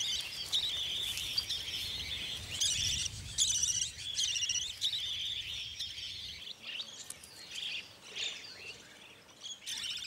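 Budgerigars chirping: a busy chatter of quick, repeated high chirps that thins out over the last few seconds.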